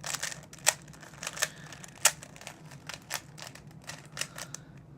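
Plastic 3x3 speed cube being twisted to scramble it: a run of quick, irregular clicks and clacks as its layers turn.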